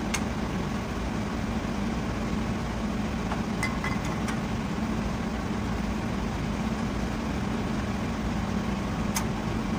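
A steady low mechanical hum, with a few light metal clicks from handling the drum brake's shoe adjuster parts.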